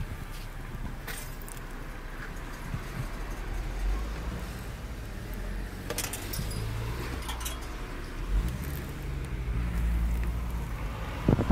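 Car engine running low from inside the cabin, its rumble rising as the car pulls away in the last few seconds. A few sharp metallic clinks and rattles come through in between: coins being paid into the bridge's toll machine.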